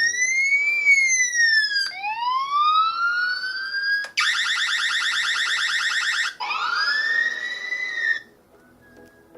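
Electronic alarm siren of a home security system cycling through its tones: a long rising-and-falling sweep, a rising sweep, about two seconds of a steady buzzing tone, then another rising sweep before it cuts off near the end.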